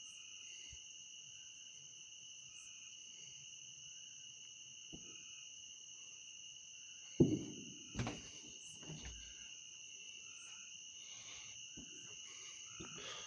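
Unexplained loud outdoor banging: one sharp bang about seven seconds in and a second about a second later, each ringing out briefly, then a few fainter knocks. Under them is a steady, shrill insect chorus.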